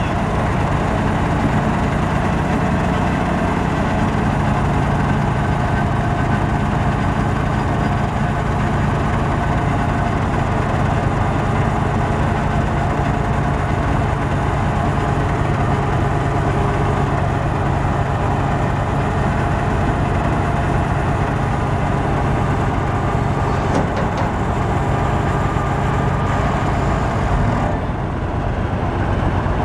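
Cummins 14-litre inline-six diesel of a 1986 Peterbilt 359 dump truck running steadily while its PTO drives the hydraulic hoist that raises the dump bed. The sound dips slightly in level shortly before the end.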